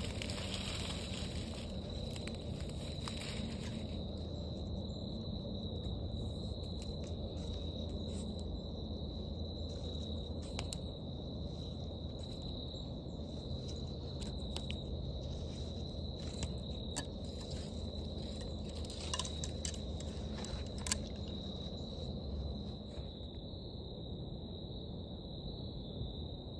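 Insects trilling steadily on one high pitch, with scattered light clicks and rustles in between.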